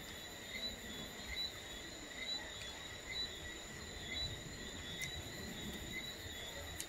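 Insects trilling steadily in several high-pitched tones, with a soft pulse about once a second.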